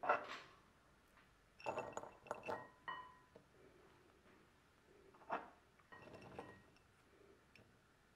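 Light clinks and knocks of kitchenware, glass or bowls and utensils being handled, some ringing briefly. They come in small groups: one at the start, a quick cluster about two seconds in, and more around five and six seconds in.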